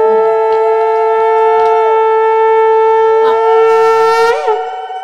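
Conch shell (shankha) blown in a long, steady note, with a second, wavering tone alongside. It is the auspicious call sounded during a Bengali blessing rite. The note falters and fades out near the end.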